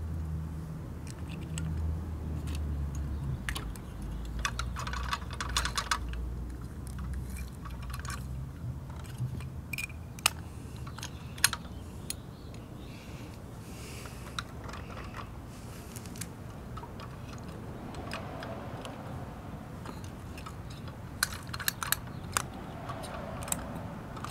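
Die-cast metal model garbage truck being handled: scattered sharp clicks and small knocks as its posable lift arms, can arm and toy bins are moved by hand, with two short rasping stretches, one about five seconds in and one near the end.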